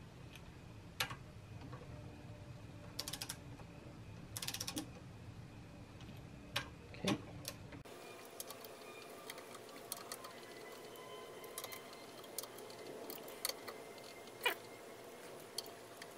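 Ratchet head of a torque wrench ticking in short quick runs as sprocket bolts are tightened, with scattered single metal clicks and taps.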